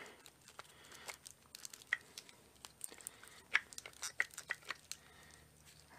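Faint, scattered small clicks and rattles as a refrigerator compressor's motor stator and its plastic end frame are handled and worked apart by hand, with a few sharper ticks around the middle.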